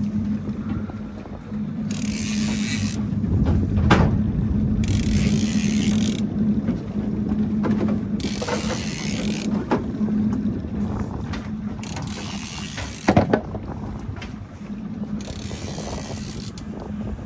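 A conventional fishing reel being cranked, its gears clicking, as a hooked halibut is winched up from the bottom on a bent rod, over a steady low hum. Sharp knocks come about four seconds in and again near thirteen seconds.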